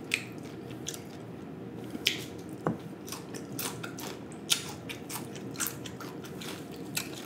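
Close-miked chewing of fried snapper: irregular crunches and wet mouth clicks.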